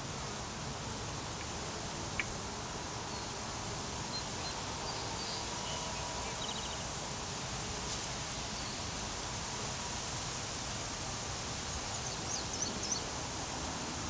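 Honey bee swarm clustered on a branch, buzzing steadily within the outdoor noise. There is a single sharp click about two seconds in and a few short high chirps near the end.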